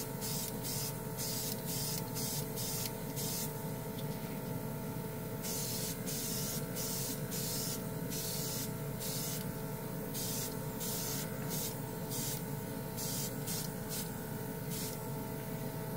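Budget portable airbrush spraying paint in repeated short hissing bursts, a couple a second, with a longer burst about six seconds in. Under the bursts is a steady motor hum from the constantly running compressor.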